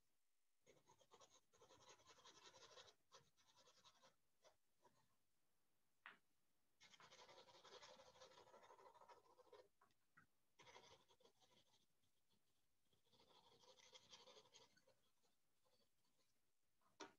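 Faint graphite pencil scratching across sketchbook paper in several spells of shading strokes, each a second or a few long, with short pauses between.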